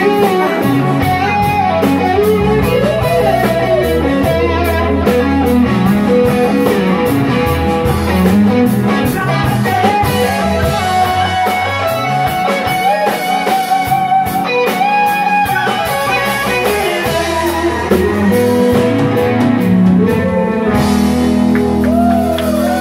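Live rock band playing, with electric guitar lines to the fore over drums. About 21 seconds in the drum strokes stop and the band holds a final chord that rings on.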